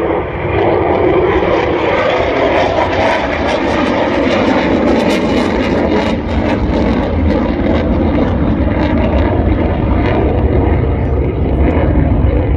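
Loud, continuous jet noise from a twin-engine F/A-18 fighter flying low past and away. The roar sinks a little in pitch over the first several seconds, and a deep rumble grows toward the end.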